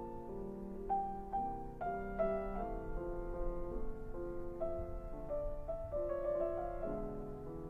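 Slow, soft piano music, with single notes and chords struck about every half second and left to ring.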